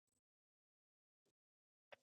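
Near silence: room tone, broken by a couple of faint short clicks, the clearest just before the end.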